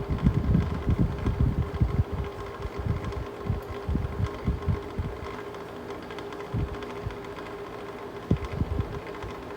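Mistral Gyro-Aire box fan running with a steady hum. Gusts of its air buffet the microphone at first and ease off about halfway through.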